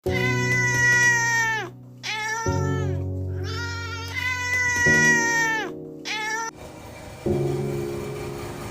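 Four plaintive cat-like meows, long, short, long, short, each falling in pitch at the end. They sound over background music with slow sustained chords, which carries on alone near the end.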